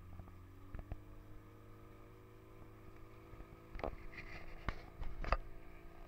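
Boat engine running steadily at low speed, with a few sharp knocks, most of them in the second half.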